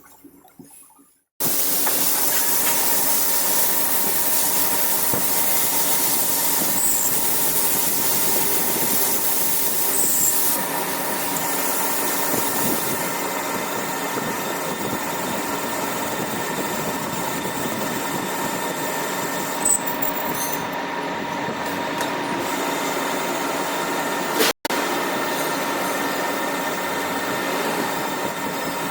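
Workshop machine working metal, a loud steady running noise with a constant high whine, starting suddenly about a second in and cut off briefly once near the end.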